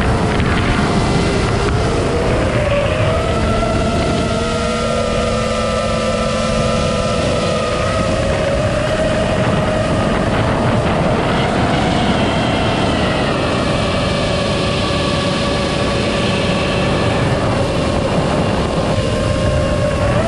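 iFlight Nazgul5 V2 5-inch FPV quadcopter's brushless motors whining in flight. Several tones drift up and down with throttle and cross one another, with a quick sharp rise and fall in pitch near the end.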